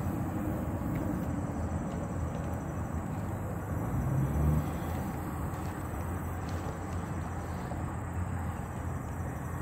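Steady low outdoor rumble with a brief louder swell about four seconds in.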